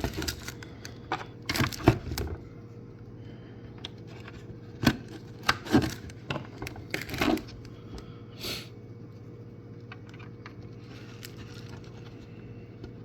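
Hands working plastic taillight parts: scattered clicks, taps and rattles, mostly in the first eight seconds, as bulb sockets are pushed into the housing and the wiring plug is fitted. A steady low hum runs underneath.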